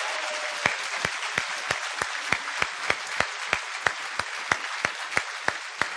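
Audience applauding, with steady clapping and one set of sharper claps standing out about three times a second.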